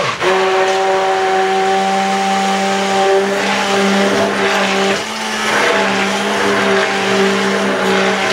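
Hand-held stick blender running steadily in a bowl of sponge-cake batter as flour is poured in, its motor whine dipping briefly about five seconds in.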